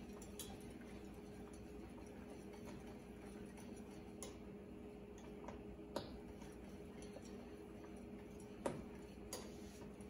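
Wire whisk stirring thick cooked custard in a stainless steel pan, its wires clicking sharply against the metal a few times at irregular moments, over a low steady hum.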